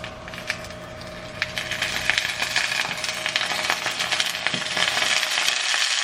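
Egg frying in a pan, sizzling and crackling with many small pops; the sizzle grows louder about a second and a half in.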